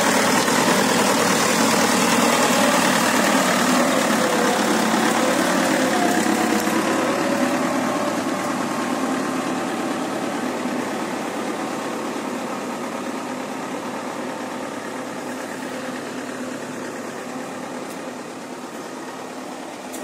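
Combine harvester's diesel engine and machinery running loud and steady, then fading away gradually as the combine pulls away into the wheat.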